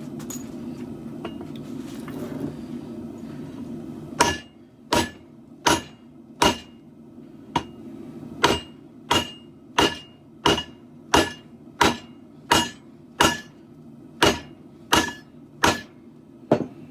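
Hand hammer striking a steel katana blade on an anvil about seventeen times at a steady pace of roughly one and a half blows a second, each blow ringing metallically: hammering the blade straight. A steady low hum runs underneath, alone for the first few seconds before the blows begin.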